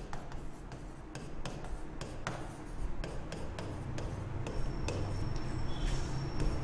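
Stylus tapping and scratching on the glass of an interactive touchscreen whiteboard as words are handwritten, in irregular small clicks over a low steady hum.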